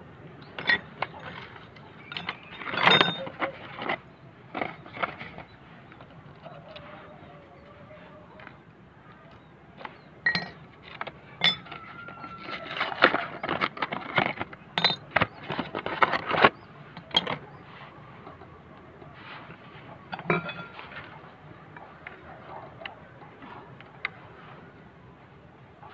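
Motorcycle disc brake pads and hand tools being handled while a scooter's front brake pads are changed: scattered metal clinks and clicks, with a denser run of clicking and rustling in the middle.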